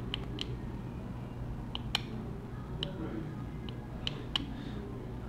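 Light, scattered clicks and ticks of a tiny screw and a small metal tool against the inside of an iPhone 6 as the screw is fitted back into the motherboard, about eight in all, over a steady low hum.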